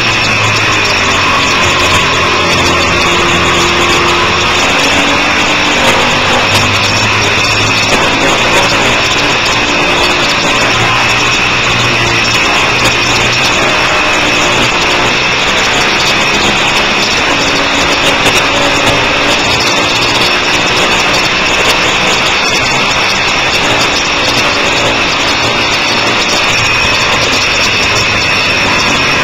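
Sport motorcycle engine at track speed, its pitch rising and falling as it accelerates and slows through corners, under heavy wind rush on an onboard microphone.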